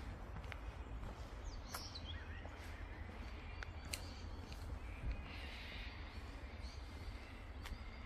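Forest birds calling on and off, with short chirps near two seconds in and a harsher, rasping call about five seconds in, over scattered footsteps on a gravel path and a low rumble.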